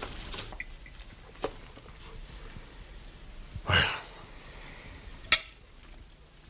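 Light clatter of tableware at a meal, with a louder knock just before four seconds in and a sharp, ringing clink about five seconds in.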